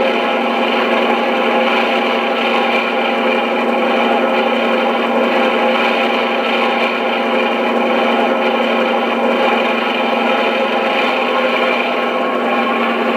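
An ESU LokSound XL sound decoder playing a Class 52 Western's twin Maybach diesel engines running steadily, through a small speaker in the model's fuel tank, so the sound has little deep bass.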